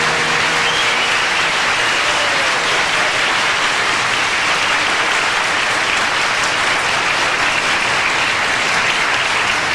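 Audience applauding at the end of a song, a steady, dense clapping that holds for several seconds, with some cheering.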